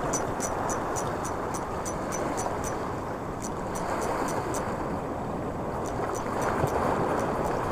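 Sea surf washing against the rocks with wind on the microphone, a steady rushing noise. Over it runs a fast, light, high-pitched ticking, about three or four ticks a second, which stops and starts a few times.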